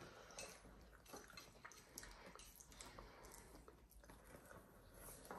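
Faint chewing and eating sounds of spicy instant noodles being eaten, with small scattered clicks and soft mouth noises.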